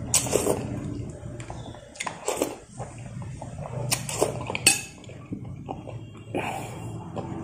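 Close-up eating sounds: broth sipped and slurped from a metal spoon, and chewing, with a few sharp clinks of the spoon against a glass bowl, the sharpest about two thirds of the way in. A steady low hum runs underneath.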